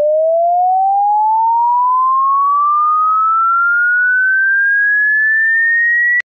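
A single electronic tone slowly sweeping upward in pitch, from low to high, at a steady level. It cuts off suddenly just before the end.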